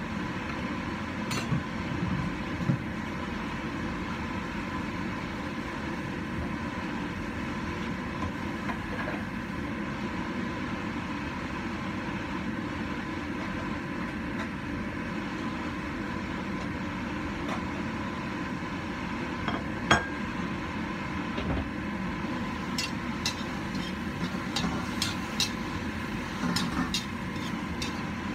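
A covered wok of vegetables cooking over a gas burner, with a steady rushing noise throughout. There is a sharp metallic knock about twenty seconds in, then light clicks and scrapes of a metal spatula against the wok near the end as stirring resumes.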